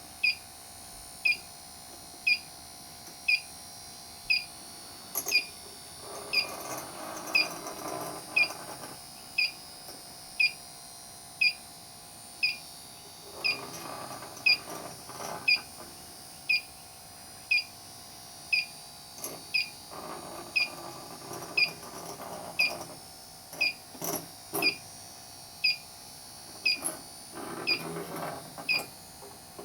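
Electronic refrigerant leak detector on high sensitivity ticking out short high beeps at a steady rate of about one a second, with no speed-up into an alarm, as its probe is run over the evaporator coil. Four bouts of scratchy rustling come in between the beeps.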